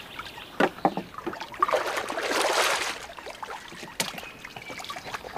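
Shallow lake water splashing and sloshing as a person wades in among reeds, with a few short splashes in the first second and a longer, louder swell of splashing about two seconds in.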